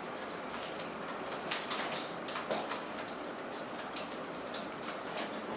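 Irregular light clicks of computer keys and mouse buttons over a steady room hum.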